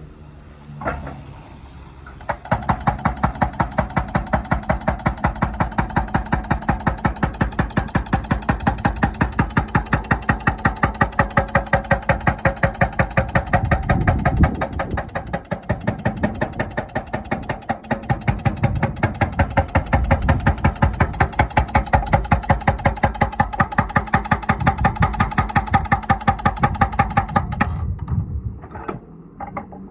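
Excavator's hydraulic breaker hammer pounding in a rapid, steady train of evenly spaced blows over the engine's running. It starts about two and a half seconds in after a single knock and stops suddenly near the end.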